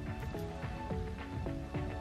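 Background production music: a light melody of short plucked or struck notes, a new note every few tenths of a second.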